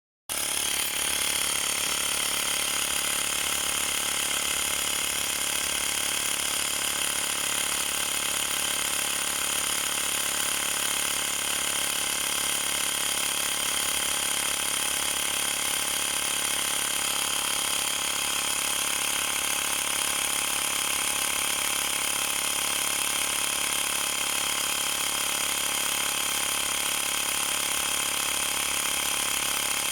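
Xiaomi portable electric air pump running steadily, its small compressor motor buzzing at an even pitch as it inflates a tyre or ball; it starts abruptly right at the beginning.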